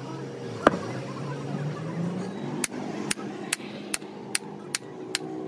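Sharp knocks of steel parts being worked on a truck differential's pinion gear and bearing housing. There is one strong knock about a second in, then from about halfway a steady run of lighter taps, two or three a second.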